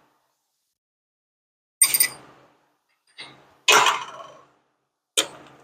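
Hammer tapping a steel lock pin into a vintage car clutch's spring plate: four sharp metal strikes, each ringing briefly, the loudest about two thirds of the way through.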